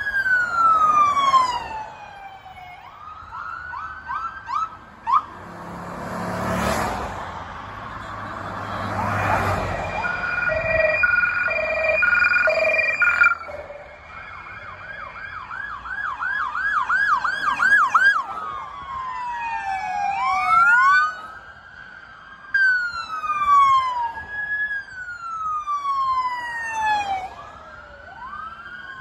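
Several police cruiser sirens sounding together as a convoy passes, switching between slow rising-and-falling wails and fast repeated yelps, with a pulsing two-note pattern for a few seconds near the middle. A short louder rumble of passing vehicle noise comes about six seconds in.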